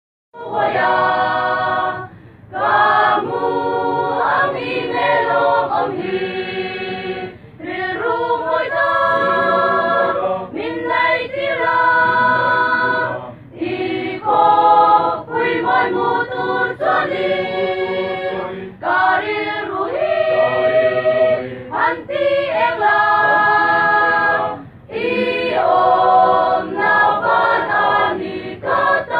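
Mixed choir of women and men singing together in sustained phrases, with short breaks for breath between them.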